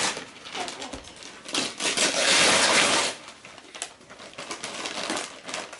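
Christmas wrapping paper being torn and crinkled by hand while a gift is unwrapped, in several bursts of rustling, the longest about two seconds in.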